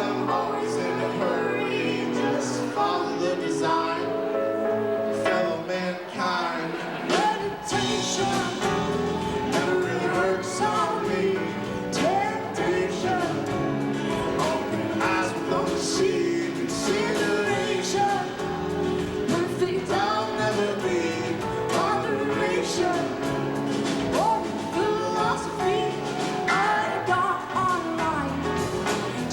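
Live band music with a singer, recorded on a VHS-C camcorder. Bass and drums come in about seven seconds in, and the full band plays on from there.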